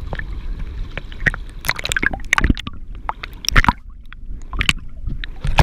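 Seawater sloshing and splashing against a camera held at the waterline, with irregular sharp splashes and knocks over a low rumble. It turns duller and muffled about four seconds in as the camera dips under the surface.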